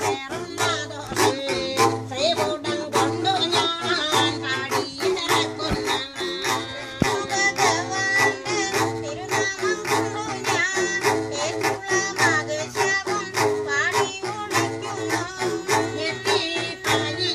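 Pulluvan kudam, the Pulluva pot instrument with a string tied from its skin to the player's toe, plucked in a quick, steady twanging rhythm, with a woman singing pulluvan pattu over it.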